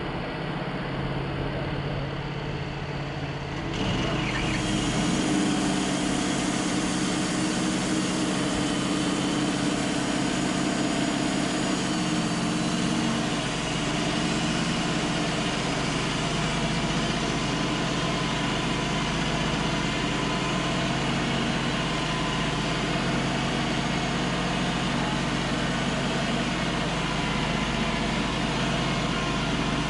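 Wood-Mizer LT35 portable bandsaw mill running, its engine steady while the band blade saws lengthwise through a Douglas fir log. About four seconds in, the blade enters the wood and the sound gets louder and hissier, then holds steady through the cut.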